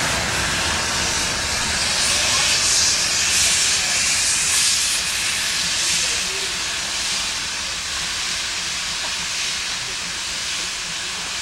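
Steam locomotive pulling a train away: a steady hiss of escaping steam, loudest a few seconds in and then easing slightly.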